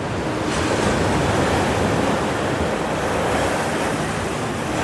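Strong high-tide surf: waves breaking and water rushing up the beach in a steady wash of noise that grows louder about half a second in.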